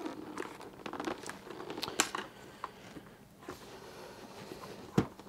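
Hands handling a modular snowmobile helmet: soft rustling of the fabric liner and light clicks against the plastic shell, with one sharper click about five seconds in.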